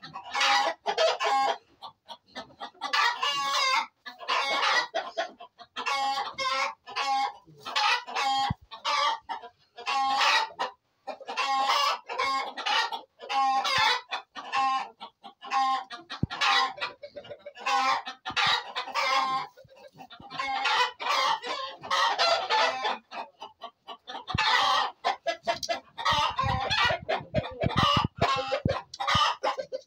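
Chickens clucking and calling over and over, with roosters crowing among them; the calls come one after another with only short gaps.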